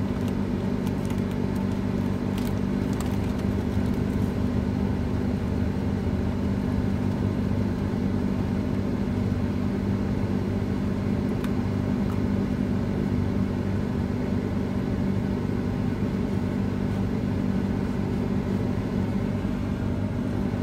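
Steady low hum of a car's engine and road noise, heard from inside the cabin while driving.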